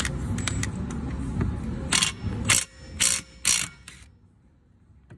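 Cordless impact wrench on a long extension hammering on a mower pulley bolt in four short bursts about half a second apart. A steady low rumble runs under the first half.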